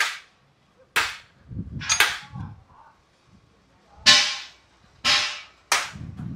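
Six sharp bangs, mostly about a second apart, each fading within half a second, with some lower rumbling between the second and third and after the last.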